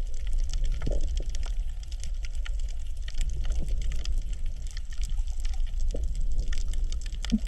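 Coral reef heard underwater: a dense, irregular crackle of small clicks and pops over a low rumble, with a few louder pops. This is the 'michi-michi' crackle the uploader takes for coral breathing, a sound typical of snapping shrimp on a reef.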